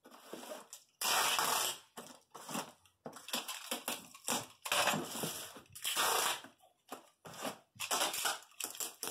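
Brown packing tape being pulled off its roll in a series of drawn-out rasping strips, each about half a second to a second long, with shorter rubbing and tapping sounds as it is pressed onto a cardboard box.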